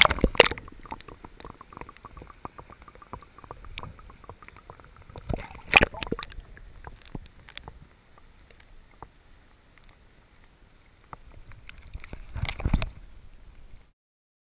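Lake water splashing and bubbling around a camera dipped under the surface, heard muffled from below the water. There are loud splashes at the start, about six seconds in and near the end, with crackling bubbles between them. The sound cuts off suddenly near the end.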